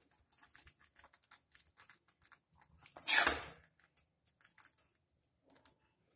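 Metal ladle scooping thick, sticky halwa from a metal pan and dropping it into a glass bowl: a run of soft scrapes, squelches and light clicks, with one louder scrape lasting about half a second about three seconds in.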